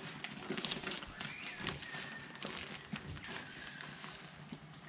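Plastic potting-mix bag rustling and crinkling as it is handled, a string of quick irregular crackles.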